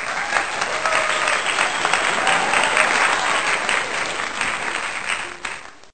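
Crowd applauding: a dense patter of many hands clapping, with some voices mixed in, that cuts off abruptly near the end.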